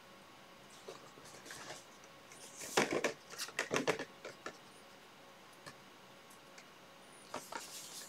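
A sheet of paper rustling and crackling as it is picked up, handled and flexed, in a cluster of crackles about three to four seconds in, with lighter rustles before and near the end.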